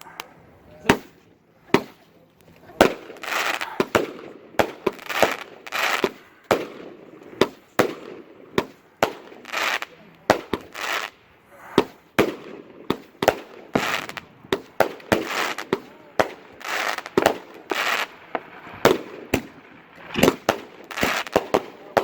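Black Cat 'Hell Kat' 200-gram consumer firework cake firing: a long run of sharp bangs, about one to two a second, with crackling hiss between shots, getting faster near the end.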